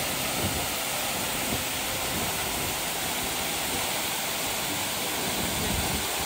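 Waterfall: water falling steadily down a tall cliff into a pool, an even, continuous rush.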